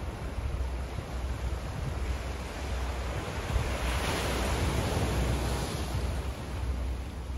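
Small waves washing against a rocky shore, an even hiss of water that swells to a peak about four to five seconds in, over a steady low rumble.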